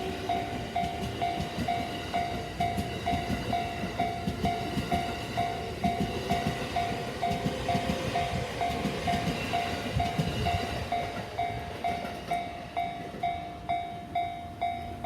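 Japanese level-crossing warning bell ringing about twice a second, with the rumble and wheel clacks of a train passing over the crossing. The bell stops near the end as the crossing clears.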